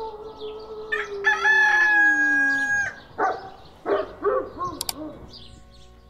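Roosters crowing. A long crow falls slowly in pitch and is overlapped by a second, higher crow, followed by a few shorter broken calls about three to five seconds in. Small birds chirp faintly.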